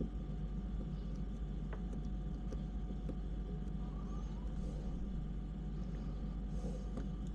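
Steady low background hum with a few faint, scattered clicks and taps of small parts and tools being handled during RC car assembly.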